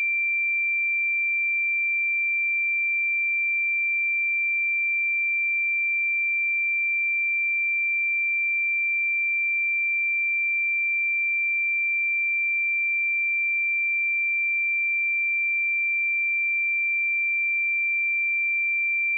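Pure 2357 Hz sine-wave test tone, one steady high-pitched note held at an even level with nothing else.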